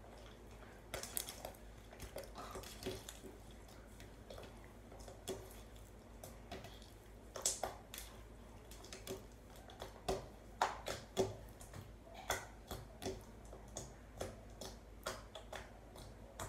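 Slime being squished and kneaded by hand, giving off irregular small pops and clicks, thickest in the middle stretch.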